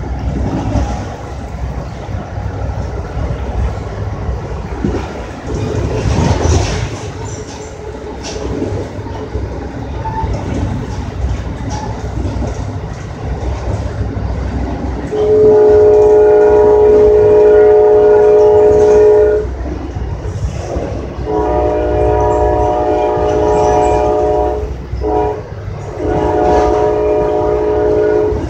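Train horn with several notes at once, sounded in the grade-crossing pattern of long, long, short, long, as a train approaches a road crossing. It is heard from inside a passenger coach over the steady rumble and clatter of the car riding the rails.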